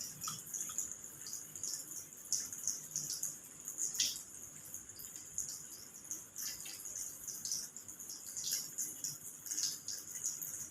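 Soapy wet hands rubbing together while lathering through the six handwashing steps: faint, irregular wet squelches over a steady high-pitched hiss.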